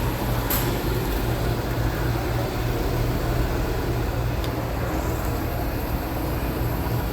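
A car engine running steadily: a constant low hum under a wash of noise.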